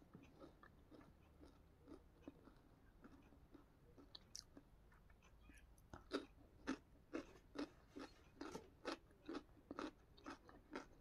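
Close-miked chewing: soft mouth clicks and smacks, faint at first, then coming about twice a second from about halfway through.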